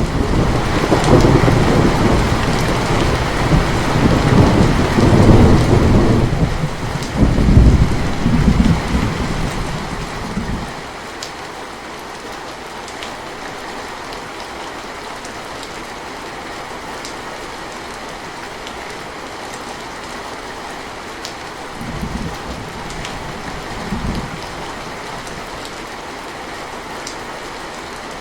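Steady rainfall with a long roll of thunder through the first ten seconds, swelling twice, then rain alone with two faint low rumbles of thunder near the end.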